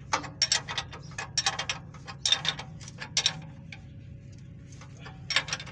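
Metal hand tools clicking and clanking against the nuts and bolts of a truck's brake booster as it is being fitted. There is a rapid, irregular run of sharp clicks for about the first three seconds, then only a few, over a steady low hum.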